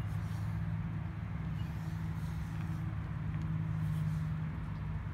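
Steady low hum of a motor-vehicle engine.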